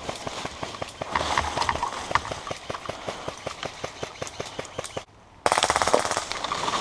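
Airsoft guns firing on full auto: a steady run of shots, about six or seven a second, for about five seconds. After a brief pause near the end comes a louder, much faster burst.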